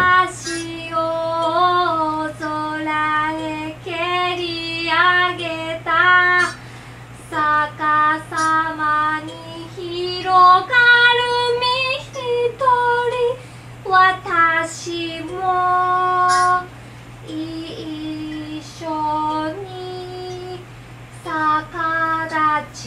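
A woman singing a slow melody in phrases with long held notes and short breaks between them, over a steady low hum.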